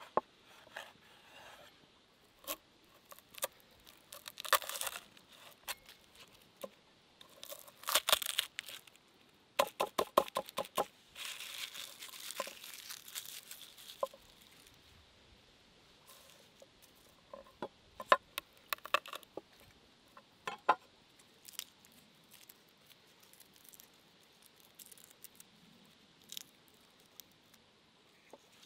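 Hands breaking a garlic bulb into cloves and peeling them, the papery skins crackling and tearing, with sharp clicks and knocks on a wooden cutting board. The crackling comes in spells, densest in the first half, and thins to scattered clicks later on.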